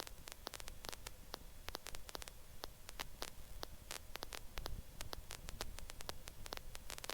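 Faint static hiss on a helicopter headset audio line, with irregular crackling clicks throughout.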